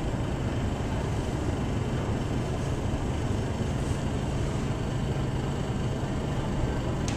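Steady low rumble with a hiss above it: continuous background noise in the room, with no distinct event except a faint click near the end.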